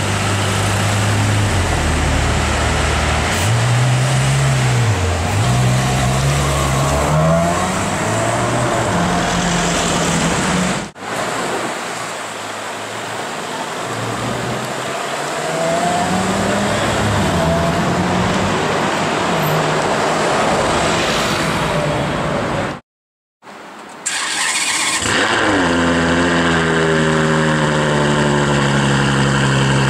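Ferrari F12 Berlinetta's 6.3-litre V12 engine revving and pulling away, its pitch rising and falling through the gears, then accelerating along the street after a cut. Near the end, after a short break, an engine revs down and settles to a steady idle.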